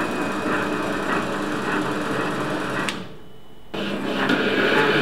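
Bernardo Profi 400 V metal lathe running under power feed while a single-point threading insert cuts a thread on a steel bar: a steady motor and change-gear whine with faint regular knocks. The owner says it is a little noisier because the swapped change gears don't mesh quite as they should. The sound breaks off abruptly for under a second about three seconds in, then comes back louder.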